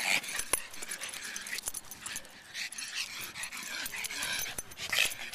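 A corgi puppy and a pug playing rough together, vocalizing in a string of short, high cries.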